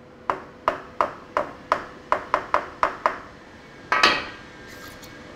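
About ten light hammer taps on a wooden workpiece, coming faster toward the end, knocking it down half a millimetre to set its height against a metal fence. A single louder knock follows about four seconds in.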